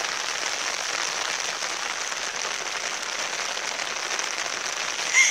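Steady heavy rain falling, an even hiss that holds at one level; a brief louder sound comes just before the end.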